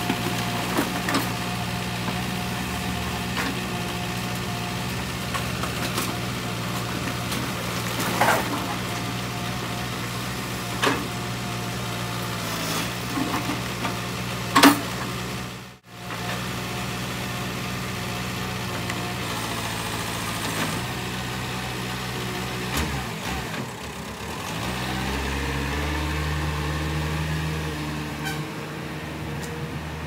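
JCB 3CX backhoe loader's diesel engine running steadily, with a few sharp metallic clanks as the backhoe bucket works through rusted sheet-metal scrap. The engine note changes about three-quarters of the way through.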